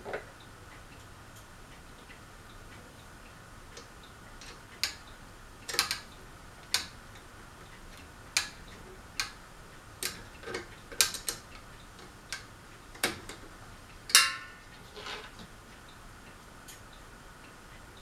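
Irregular sharp clicks and clinks of hands handling the switch housing on the underside of a Crest ceiling fan, loosening its parts for removal; about fifteen clicks, the loudest a short rattle about two-thirds of the way through.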